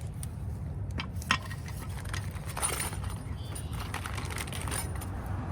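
Small metal parts of a truck drum-brake shoe kit (springs and bushings) clicking and clinking as they are handled and fitted. There is a sharp click a little after one second and a few more with a faint ring about halfway through, over a steady low hum.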